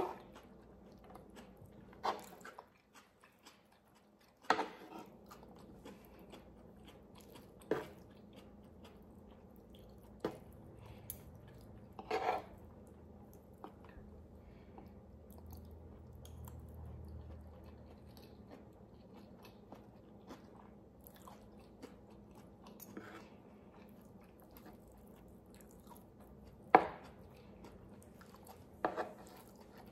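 Close-miked chewing of beef stew, rice and noodles, with about eight sharp clicks of a metal spoon and fork against the wooden tray, spaced a few seconds apart; the loudest comes near the end.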